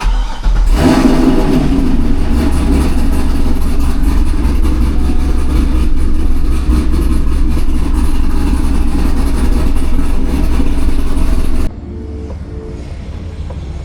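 Car engine starting and revving up as it catches under a second in, then running loud and steady. It cuts off abruptly about twelve seconds in, giving way to quieter music.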